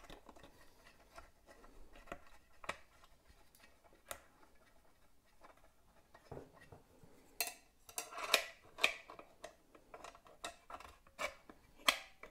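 Scattered light clicks and clacks of a circular saw's guide attachment being handled and fitted onto the front of the saw, with a run of louder clacks a little past halfway.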